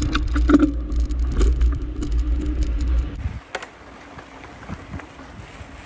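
Mountain bike riding over a rough dirt track, heard from a camera on the bike: a heavy wind rumble on the microphone with the bike rattling and clicking over the ground. About three seconds in it drops to a much quieter hiss of wind.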